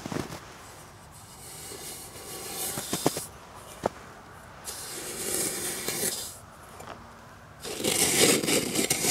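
Metal camping pot scooping and scraping through snow in three strokes, with a couple of light metal clicks between them.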